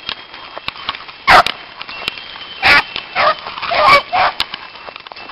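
Beagle hounds baying and barking, several loud drawn-out calls in quick succession, the cry of hounds running a rabbit.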